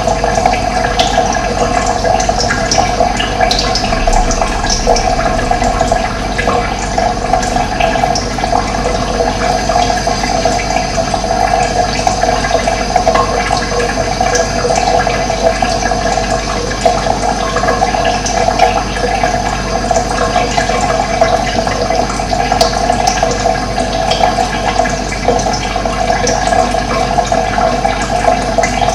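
Running water flowing steadily, an even rushing that does not let up.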